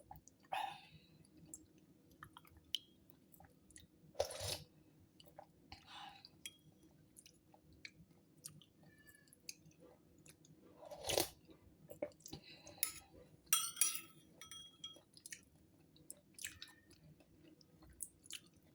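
Quiet close-up eating sounds: a person chewing papaya herbal soup, with scattered soft mouth clicks and a few louder brief bursts.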